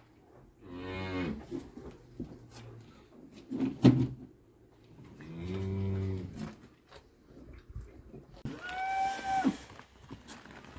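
Cattle mooing: three long calls, the last one higher-pitched. There is a sharp knock about four seconds in.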